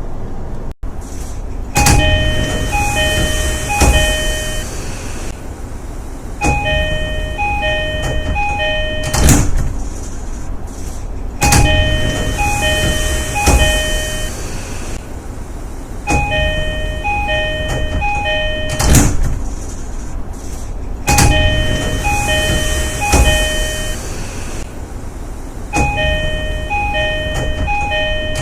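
JR East E233 series train door chime: a two-note high–low chime sounded three times, heard six times about every five seconds, with sliding doors and a heavy door thud at intervals.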